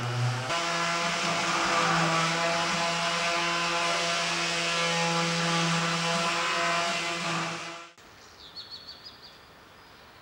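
A loud, steady drone of several held tones that shifts pitch a couple of times, then cuts off suddenly about eight seconds in. After it, a small bird chirps a quick run of short notes against a faint open-air hush.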